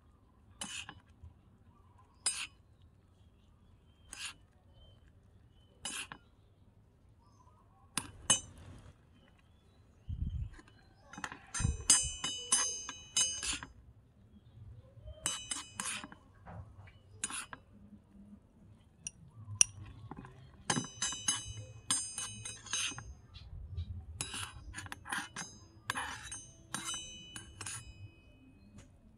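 Small metal spoon clinking and scraping against a miniature metal wok while scooping out stir-fried food. It starts as single sharp clinks every couple of seconds, then turns into quick runs of ringing clinks about a third of the way in.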